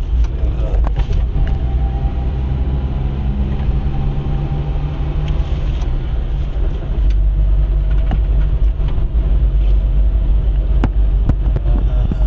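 A car driving along a road: steady low engine and road rumble, with a faint whine in the first few seconds and a few small clicks or rattles near the end.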